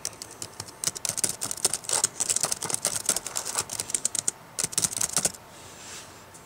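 Fast typing on a computer keyboard: a rapid, uneven run of key clicks with a brief pause, stopping about a second before the end.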